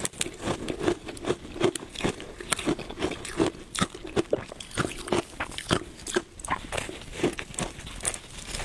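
A frozen block of shaved ice being bitten and chewed: an irregular run of sharp crunches and crackles, several a second.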